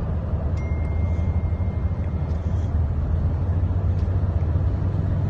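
Steady low rumble of a moving car heard from inside the cabin: engine and road noise while driving.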